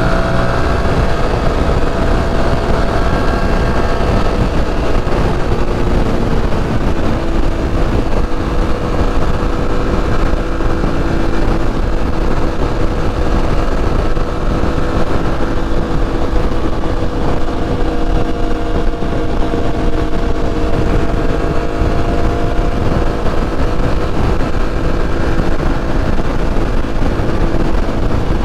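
Aprilia Tuareg 660's parallel-twin engine running at a steady cruise, heard from the saddle, over a constant low rumble of wind and road noise.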